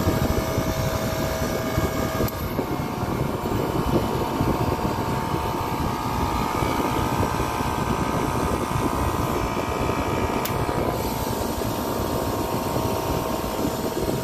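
Copeland digital scroll compressor running steadily, with a click about two seconds in and another about ten seconds in as its unloading solenoid valve switches, and the compressor's tone changing between the two clicks as it cycles between loaded and unloaded. This cycling noise is normal operation for a digital scroll, not a fault.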